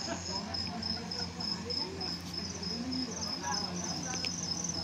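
Insects chirping: a high, even chirp repeating about three times a second, with a second chirper joining about halfway in, over a steady low electrical hum and faint distant voices.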